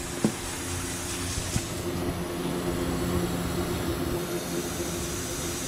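Steady low mechanical hum with a light hiss of air, and two faint clicks near the start.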